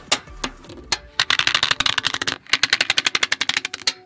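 Small magnetic balls clicking against one another as a row of them is laid into a grid of balls. A few separate clicks come first, then two rapid runs of dense clicking about a second long each, which stop just before the end.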